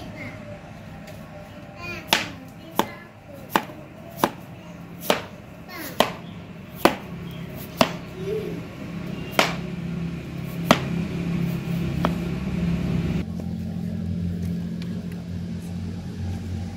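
About a dozen sharp knocks, irregularly spaced roughly a second apart, over steady background music; the knocks stop about two-thirds of the way through.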